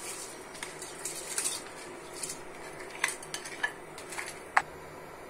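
A plastic rice paddle scraping rice out of a ribbed glass bowl into a pot, with swishes of rice sliding out and a scatter of light clinks and taps of utensil and bowl, the sharpest about four and a half seconds in.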